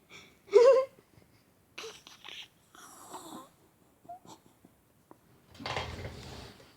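A child's short, rising squeak of a vocal noise, followed by soft wheezy, breathy noises, then a long sniff close to the phone's microphone near the end.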